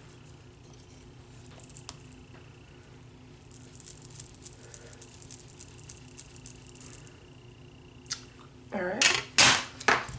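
Makeup brush sweeping bronzer across the cheek: soft, crisp scratchy strokes, clustered through the middle, with a faint steady hum beneath. A few isolated clicks are heard, and a voice comes in near the end.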